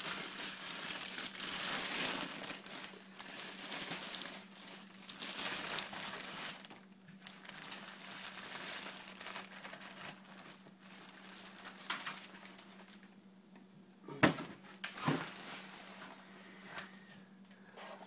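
Clear plastic bag crinkling as it is pulled off a steel PC case, loudest over the first several seconds and then fainter. Two sharp knocks come about a second apart near the end.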